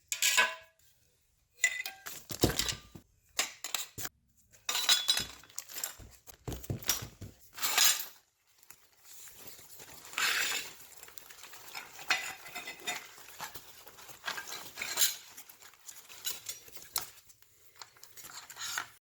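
Irregular metallic clinking and clattering, like metal parts and hand tools being handled and set down on a workbench. The strongest clatters come in the first half, followed by lighter rattling.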